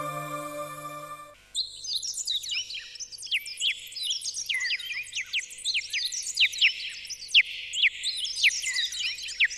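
Background music with long held notes stops about a second and a half in. After that, a dense chorus of small birds chirps without a break, with many quick chirps that fall in pitch.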